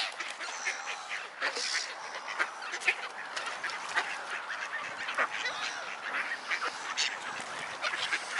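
A crowded flock of ducks, Canada geese and gulls calling over one another, many short calls overlapping without a pause, as the birds gather round for food.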